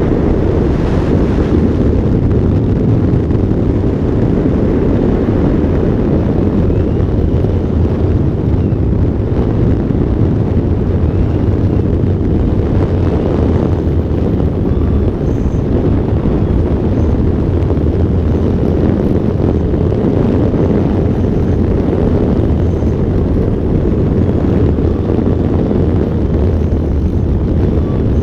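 Airflow buffeting a microphone mounted on the wing of an electric ultralight aircraft, a steady low rumble, as the aircraft flies just above the grass and then rolls along it.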